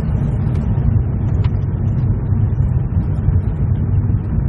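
Steady low rumble of a car driving on a gravel road, heard from inside the cabin: tyres on gravel over the engine.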